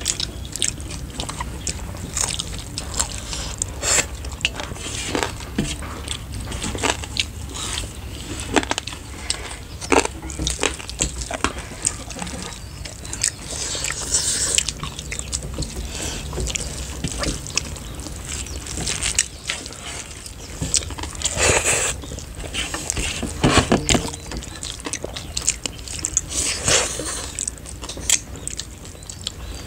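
Close-miked eating sounds: people chewing and working rice and curry by hand, with many short scattered clicks and a few brief louder hissy bursts.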